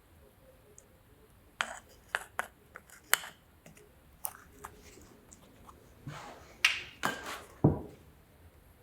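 Irregular sharp metallic clinks and knocks of metal tools and parts being handled, ending about three quarters of the way in with a cluster of clatter and one heavier, duller thud.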